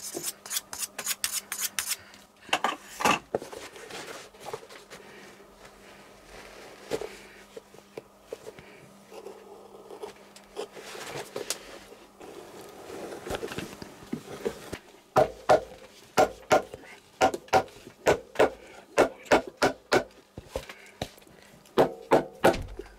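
Shoe repair at a cobbler's bench: a rasp filing in quick strokes at the start, then quieter knife trimming, then a run of sharp hammer blows, about two to three a second and the loudest sound, driving nails into a rubber shoe sole.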